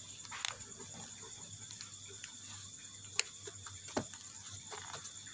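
Faint, steady high-pitched trilling of night insects, with a few soft clicks and a light knock about four seconds in.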